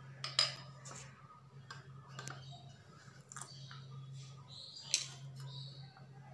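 A few light taps and clinks of a steel bowl and utensils being handled on a stone countertop, the sharpest about five seconds in, over a steady low hum.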